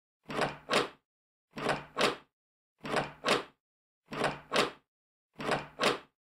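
Door-opening sound effect played over and over: five times, each a pair of quick swelling sounds, the second the sharper, with dead silence between repeats.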